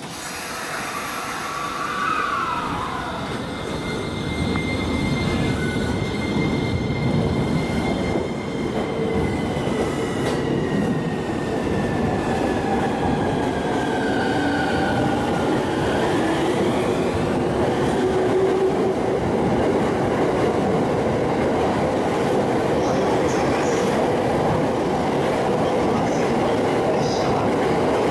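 E231-series electric commuter train pulling out of the platform and accelerating. The motors whine in several tones that slide down in pitch and then climb again about halfway through, over a growing rumble and clatter of wheels as the carriages pass.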